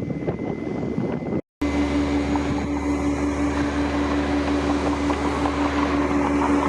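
Noisy outdoor rumble that drops out briefly about a second and a half in, followed by a steady mechanical hum with one constant pitched tone and a low drone.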